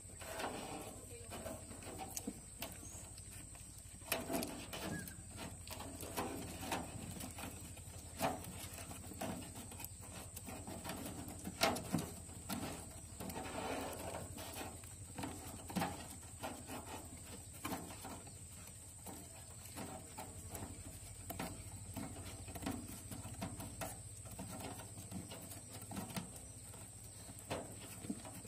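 White rats scuffling and tearing at a rat carcass: irregular clicks, rustles and chewing sounds, with a steady faint high whine underneath.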